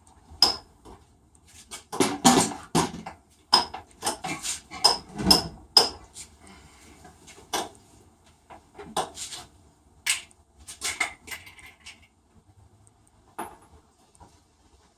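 Irregular metal clanks and knocks, some strikes ringing briefly, in clusters with short gaps between them.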